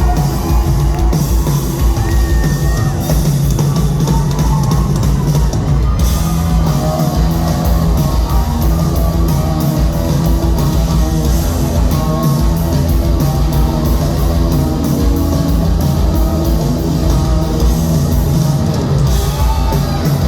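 Live rock band playing loud: electric guitars over a driving drum kit.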